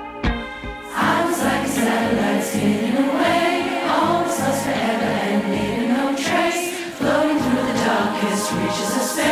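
Large choir singing a song arrangement. A softer held chord in the first second gives way to the full choir coming in about a second in.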